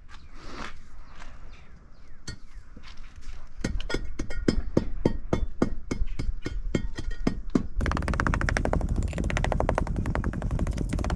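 Steel hand tamper pounding down a sand bed for pavers: repeated dull strikes, about four a second, starting a few seconds in. About eight seconds in they abruptly become faster and denser.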